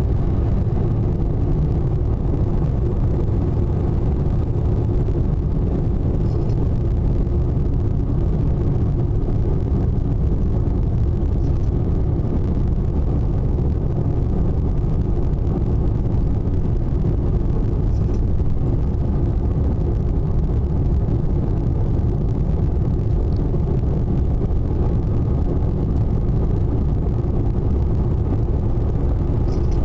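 Steady road and engine noise inside a moving car: a low, even rumble of tyres and engine with a faint hum, unchanging throughout.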